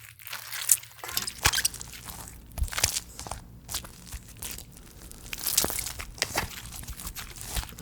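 Slime being kneaded and pulled by hand, giving irregular crackles and small pops.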